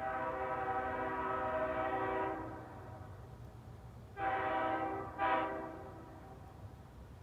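Nathan Airchime K5HL five-chime locomotive air horn, an early-2000s hybrid set, sounding its chord in one long blast of about two and a half seconds. After a pause come two short blasts close together, the second shorter.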